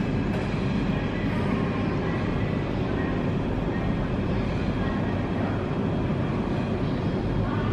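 Steady jet aircraft noise on an airport apron: an even roar with a faint high whine above it.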